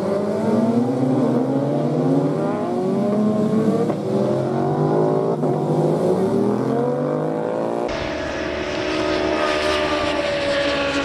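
Several racing superbike engines accelerating hard, their pitch rising again and again as they pull through the gears. About eight seconds in, the sound cuts abruptly to another stretch of engines holding a steadier, higher note.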